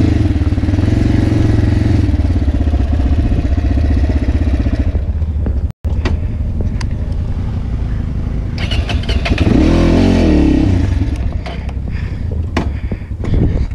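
Italika motorcycle engine running at a steady low speed over a rocky dirt track, with scattered short knocks from the rough ground. The sound cuts out for an instant near the middle, and about ten seconds in the engine revs up and falls back once.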